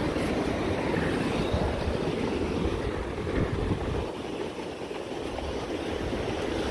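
Low surf washing over the shallows at the water's edge, a steady rushing with a rumble of wind on the microphone.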